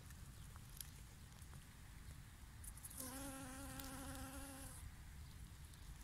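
A flying insect buzzing close by for a little under two seconds, starting about halfway through: a steady, slightly wavering hum.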